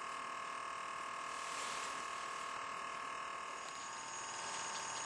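Steady electrical whine: several held tones over a faint hiss, unchanging throughout.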